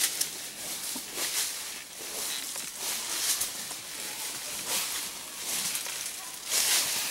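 Leaves and brush rustling in irregular swishes, about one a second, as a walking elephant pushes through forest undergrowth.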